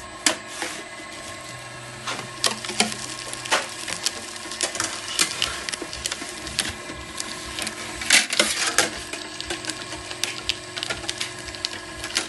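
Number-plate making machinery at work: a motor-driven foil roller and lever press, with irregular sharp clicks and clacks of metal over a steady low motor hum. The loudest burst of clatter comes about eight seconds in.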